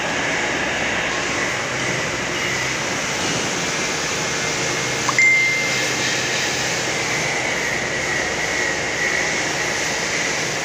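Steady machinery noise of a large industrial shed, an even hum and hiss with no clear rhythm. About halfway through there is a click followed by a brief high-pitched tone.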